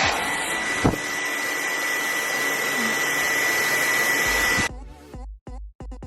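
Handheld hair dryer running on high: a steady rush of air with a high whine, which cuts off suddenly near the end. Electronic music with a beat follows.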